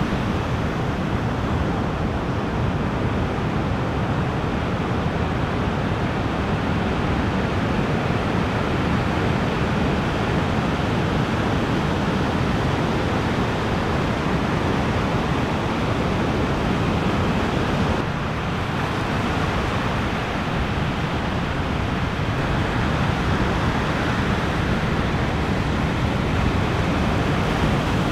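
Ocean surf: waves breaking and washing in a steady rush of noise, with a brief lull about two-thirds of the way through.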